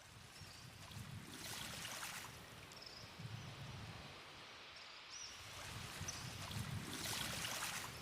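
Night nature ambience: a rushing noise that swells twice, about five seconds apart, over a low rumble, with a few faint high chirps.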